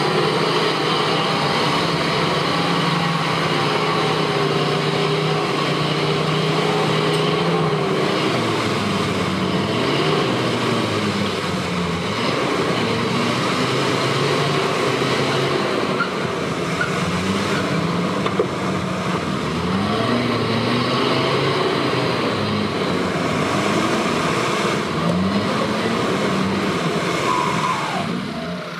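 Off-road 4x4 engine running under load, its pitch rising and falling repeatedly with the throttle.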